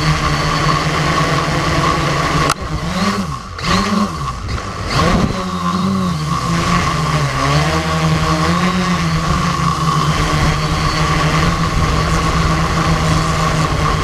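Quadcopter drone's electric motors and propellers whining, heard from the drone's own camera. About two and a half seconds in the sound dips and the pitch swoops up and down for a few seconds as the throttle changes, then it settles back to a steady whine.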